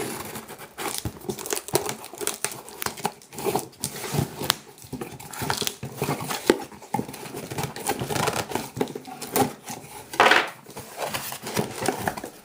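Cardboard mailing box being torn and pulled open by hand: irregular tearing, scraping and flap noises, then the crinkle of plastic air-pillow packing near the end, with a louder rustle about ten seconds in.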